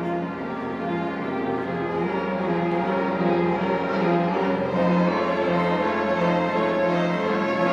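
A slow hymn performed acoustically: a melody of long held notes over a sustained accompaniment.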